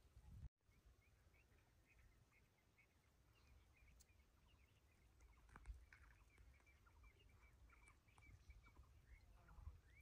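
Near silence: quiet outdoor ambience with a low rumble and faint, rapid chirping from small creatures. The sound drops out for an instant about half a second in.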